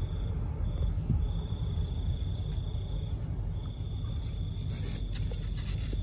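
A steady high-pitched insect trill, broken by a few short pauses, over a low steady rumble, with a few faint clicks near the end.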